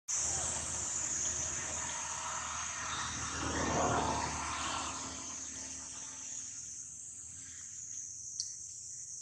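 A steady, high-pitched chorus of insects, with a broad rushing noise that swells about four seconds in and then fades.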